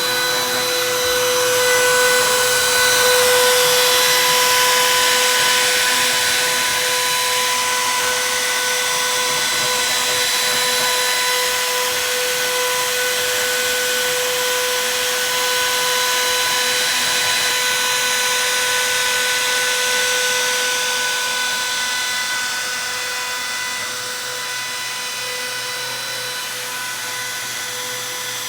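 CNC router spindle running with a steady high whine over a rushing hiss as the bit cuts into a wooden plaque, a little quieter over the last few seconds.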